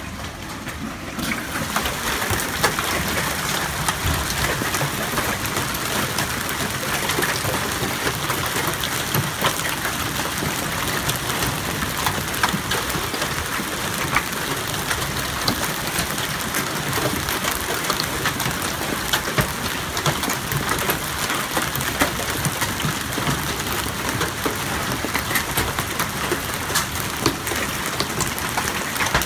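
Hailstorm with heavy rain: a dense, steady hiss peppered with many sharp ticks and cracks as hailstones strike the ground, the street and the parked cars. It grows louder about a second in and then holds steady.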